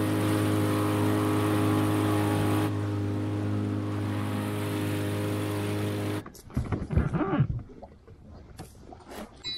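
Small outboard motor running steadily under way while the boat tows another on a rope, with wind and water rushing past. It cuts off suddenly a little after six seconds, followed by a few knocks and a brief voice.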